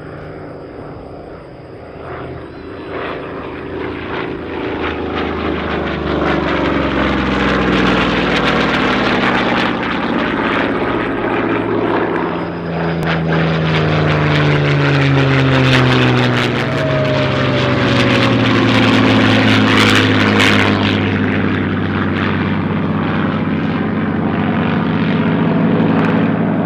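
Piston engines of World War II propeller fighters making low passes. The engine drone builds over the first several seconds and stays loud, and its pitch falls as the aircraft go by, more than once.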